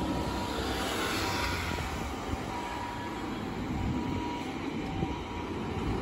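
Road traffic passing close by in a jam, with a steady rumble of engines and tyres. Under it, a faint Japanese ambulance two-tone siren at reduced volume sounds on and off.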